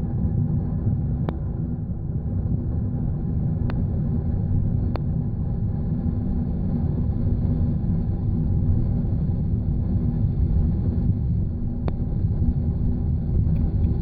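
Steady low rumble heard inside the cabin of a Boeing 777-300ER on its landing, with four faint clicks.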